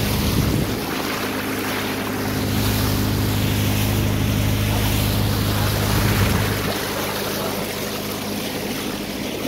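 Tour boat's engine running steadily with a low hum, over the rush of water along the hull and wind on the microphone. The hum weakens about two-thirds of the way through.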